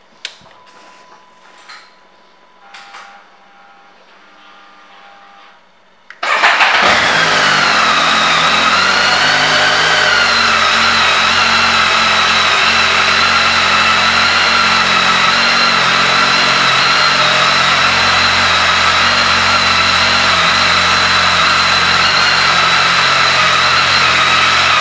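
2009 BMW K 1300 S inline-four engine started about six seconds in, after a few faint clicks from the controls. It catches at once, its revs rise and dip briefly, then it settles into a steady idle with a high whine over it.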